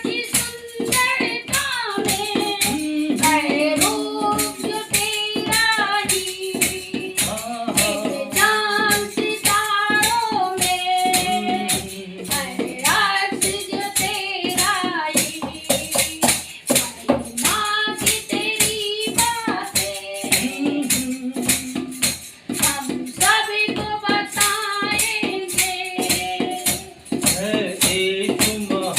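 Hindi Christian devotional song: a voice singing a melody over music driven by a fast, steady jingling percussion beat.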